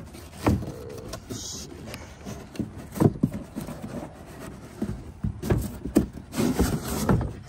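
Large cardboard box being handled and its flaps pulled open: irregular knocks, scrapes and rubbing of cardboard, busiest near the end.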